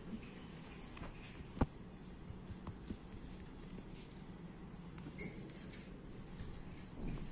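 Faint handling of a plastic-wrapped Post-it sticky notepad pack: light scattered ticks and rustles, with one sharp click about a second and a half in, over a low steady hum.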